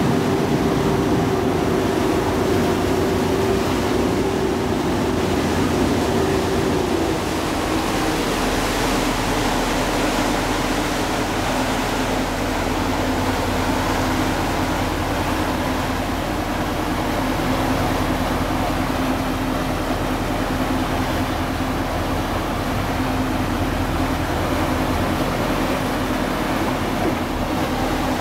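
Ferry's engine running steadily under a rush of water along the hull; the engine's note drops to a lower pitch about seven seconds in.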